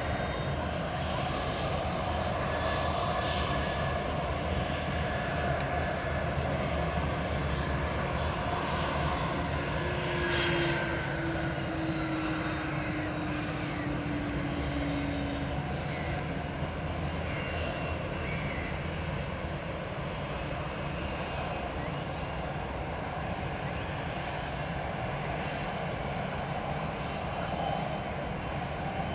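Twin Pratt & Whitney Canada PW306D turbofans of a Cessna Citation Latitude business jet, a steady jet noise with a tone that slides down in pitch around the middle.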